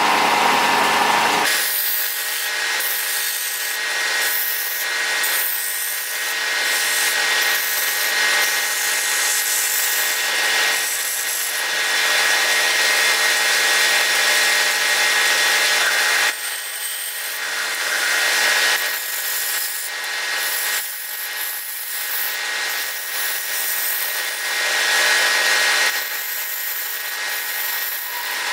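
Wood lathe running with a steady whine while something rubs against the spinning wooden workpiece, a rough continuous hiss. The sound changes abruptly about 1.5 s and 16 s in.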